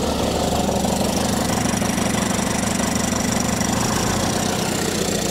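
Cummins Big Cam III 855 inline-six turbodiesel in a 1971 Dodge L1000 cabover running steadily, just brought back to life after sitting for over 25 years.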